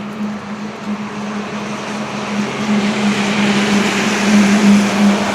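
Road traffic on a wet road: tyres hissing through the water as a vehicle passes, swelling from about halfway through, over a steady low hum.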